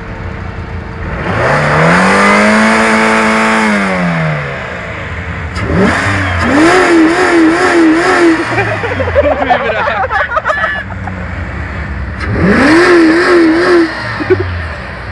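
Jeep Grand Cherokee engine idling, then revved three times: first up, held for a couple of seconds and let fall back, then twice held against the rev limiter, the pitch bouncing up and down about three times a second as the limiter cuts in.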